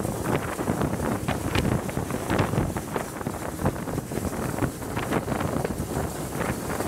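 Wind buffeting a microphone held out of a carriage window, in irregular gusts, over the running noise of a train hauled at speed by the Bulleid West Country class steam locomotive 34027 Taw Valley.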